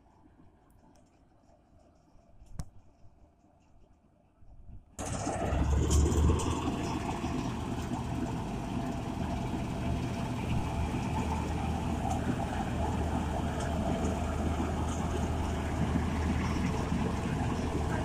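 A Vishal combine harvester running as it cuts wheat: a loud, steady engine-and-machinery drone with a low hum, which starts abruptly about five seconds in after a faint start with one sharp click.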